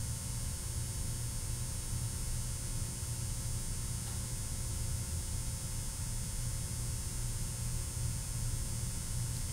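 Steady low electrical hum, like mains hum from the recording setup, with faint steady high tones above it; no other sound stands out.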